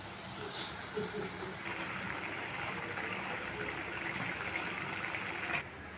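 Fish curry gravy bubbling and sizzling at a boil in a wok, a steady hiss that cuts off suddenly near the end.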